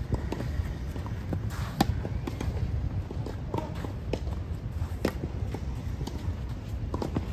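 Tennis rally: sharp pops of rackets striking the ball, roughly every second and a half, the near player's shots louder than the far ones, over a low steady rumble.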